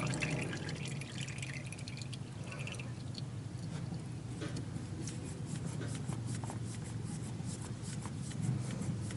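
Engine oil trickling and dripping from the tractor's oil filter mount into a drain pan after the filter is spun off, with faint scattered drips over a steady low hum.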